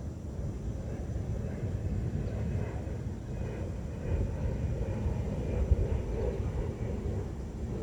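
Steady low rumble of outdoor background noise, swelling slightly near the middle, with no clear single event.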